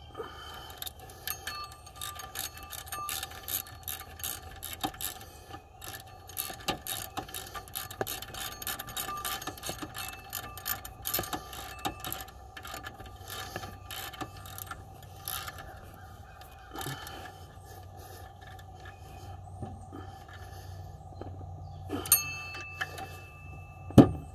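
Small ratchet wrench clicking in quick runs as the alternator mounting bolts are run in, then a couple of sharp metal knocks near the end.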